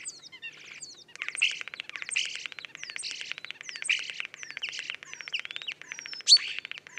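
Common starling song played back from a recording: the bird weaves imitations of other species' calls into its own song. It opens with whistled slurs, then from about a second in runs a long, fast string of clicks and rattles with whistles over it, and a sharp loud call comes near the end.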